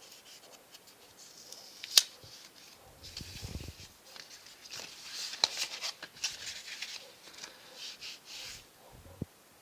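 Plastic wrapping sheet crinkling and rustling as it is peeled off a smartphone, with light handling clicks. There is one sharp click about two seconds in.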